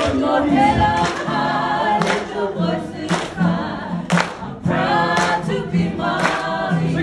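Kapa haka group singing and chanting together, many voices in unison, with a sharp beat about once a second.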